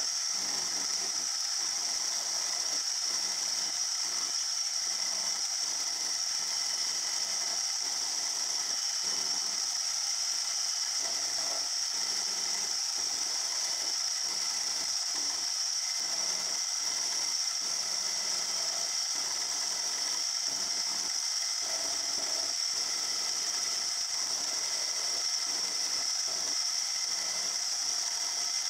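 Milling machine running with an end mill facing the underside of a model-engine crank web: a steady high-pitched whine over the irregular rasp of the cut.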